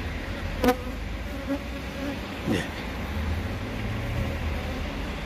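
Korean native honeybees (Asian honeybees) buzzing around their hive entrance as foragers fly in with pollen, the sign of an active colony that has come through winter. A steady hum runs underneath, and single bees buzz briefly close by, once about a second in and again about two and a half seconds in.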